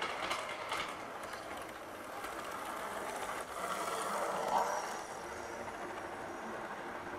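Model train running on its track and passing close by, a steady mechanical whirr and rattle with a few sharp clicks near the start, growing loudest about four seconds in as it goes past.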